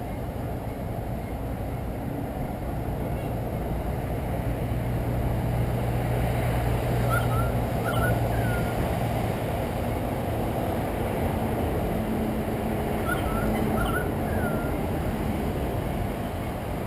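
Steady low rumble with a hum that swells for a few seconds midway. A bird gives two groups of three short chirps, about six seconds apart.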